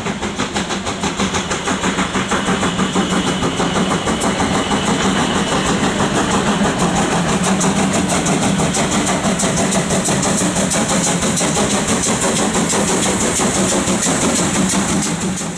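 Steam locomotive working under power, its exhaust chuffing in quick even beats, about four to five a second, over a steady hiss of steam from the open cylinder cocks.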